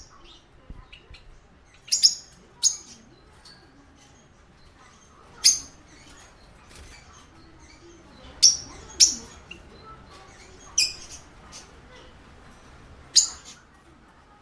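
Parakeet calling in short, sharp, high chirps every second or few, some coming in quick pairs, with softer chirps between.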